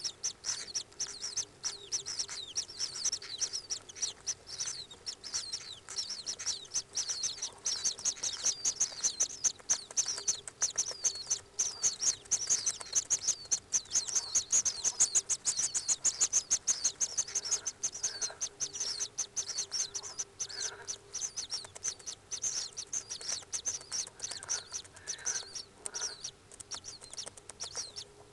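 Common kingfisher in its nest burrow: an unbroken run of high, thin chirps, several a second, each sliding down in pitch, loudest in the middle stretch. A faint steady low hum lies underneath.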